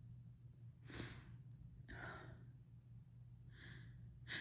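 A woman's faint, breathy breaths during a sneezing fit: four soft breaths or sniffs about a second apart, the last one sharper, near the end.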